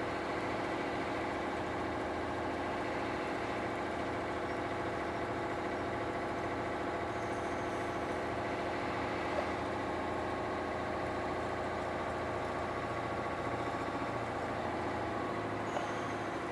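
Heavy truck's diesel engine heard from inside the cab, pulling steadily up a climb held in third gear. The note stays even throughout.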